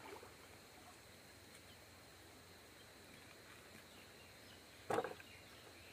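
Quiet outdoor ambience: a faint, even background with a thin steady high tone, and one brief louder noise about five seconds in.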